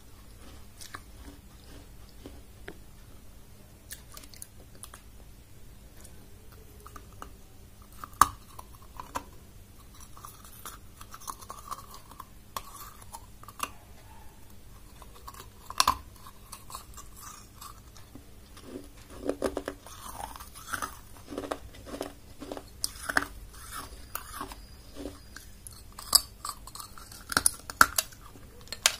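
Small clay cup (diya) being bitten and chewed. There are two sharp snaps as pieces break off, then a long run of close-up crunching and grinding of the clay in the second half.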